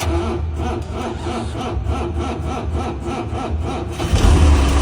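Cummins diesel engine in a Land Rover Defender being cranked on the starter, a rhythmic churning about four times a second, catching a little after four seconds in and settling into a loud steady idle.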